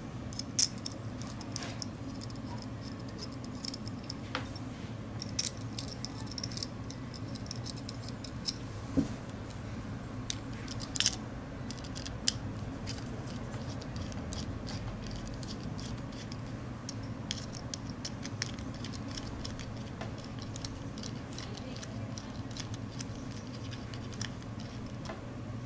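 Small metal clicks and clinks of a screw being fitted into a blue aluminium Makeblock timing pulley and turned with a small screwdriver, scattered and most frequent in the first half, over a steady low hum.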